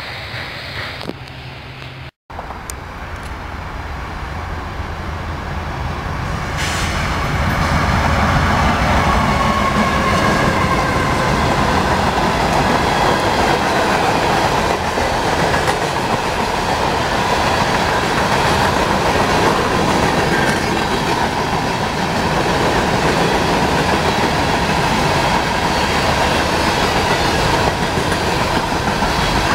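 Freight train cars rolling past close by: steady wheel-on-rail noise with clickety-clack and a faint thin wheel squeal under it. The sound drops out briefly about two seconds in, then swells over the next several seconds and holds steady.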